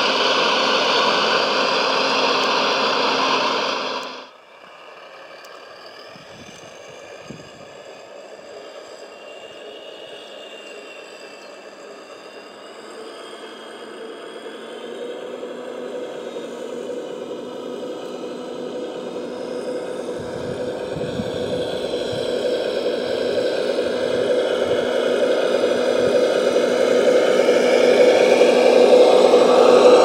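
Motors and hydraulics of a large RC model Volvo A45G dump truck whirring loudly, cutting off suddenly about four seconds in; a quieter whir then builds steadily louder as the machine works closer again.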